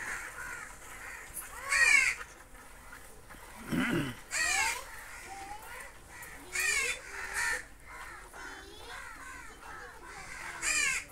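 A crow cawing, five short harsh calls spaced one to a few seconds apart.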